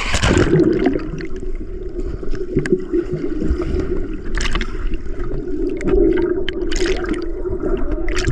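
A splash as swimmers plunge into a pool, then the muffled rumbling and bubbling of the water heard from underwater, with short bubbly crackles now and then.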